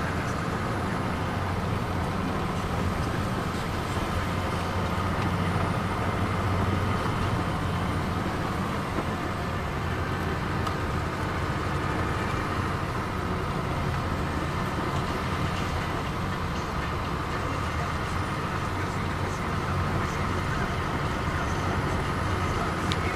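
Steady engine and tyre noise of a car, heard from inside its cabin while it drives along.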